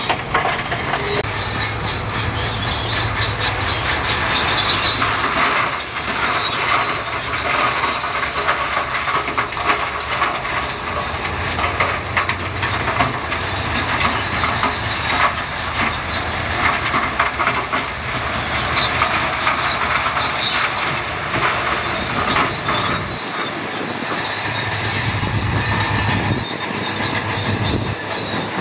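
Shantui crawler bulldozer working, its diesel engine running steadily under a continuous dense clanking and squealing of its steel tracks.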